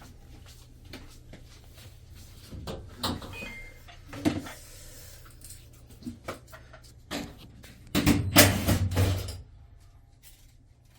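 Scattered knocks and clicks of hard parts being handled, with a louder run of clattering about eight seconds in, over a low steady hum.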